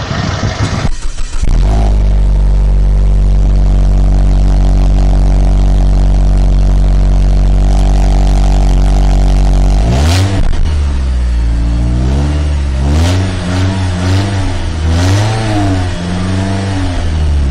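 Car engine sound effect: after a brief clatter, an engine runs steadily for about eight seconds, then revs up about ten seconds in and is blipped several more times, its pitch rising and falling with each rev.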